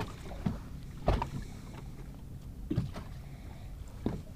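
A fishing boat on choppy open water: a low steady rumble of wind and water around the hull, with a few light knocks, the loudest about a second in.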